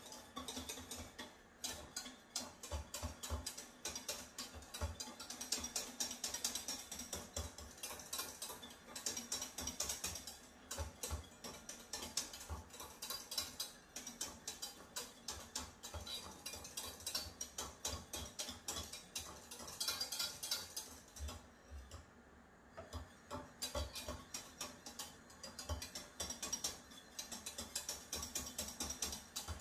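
Metal whisk beating rapidly against a saucepan in a fast, even clicking and scraping: crème pâtissière being stirred constantly on the heat so it thickens without lumps. The beating stops briefly about three-quarters of the way through.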